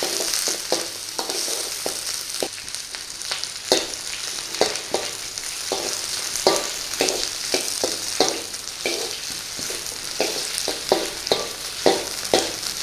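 Onions and peppers stir-frying in hot oil in a pan: a steady high sizzle, with irregular scrapes and knocks of the stirring utensil against the pan about once or twice a second.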